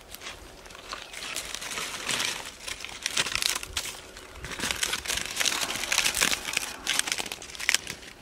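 Large fresh green leaves crinkling and rustling in irregular bursts as they are handled, dropped and spread out on the ground.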